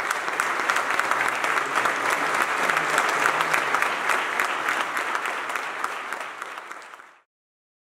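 Audience applause from a large seated crowd: many hands clapping at once in a dense, steady rattle. It fades out near the end and stops about seven seconds in.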